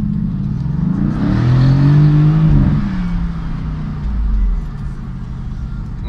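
Mercedes GT's engine heard from inside the cabin as the car accelerates away. The engine note climbs for a couple of seconds, peaks, drops back about three seconds in, then settles into a steady lower run.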